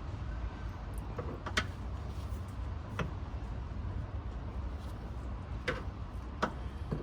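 Scattered light clicks and taps from hands and tools working at the fuel filter's hose connections, about five in all, over a steady low rumble.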